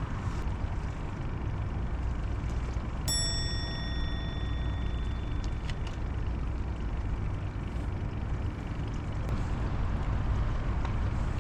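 Steady low outdoor rumble by the water, and about three seconds in a single clear ding, bell-like and metallic, that rings out and fades over about two seconds.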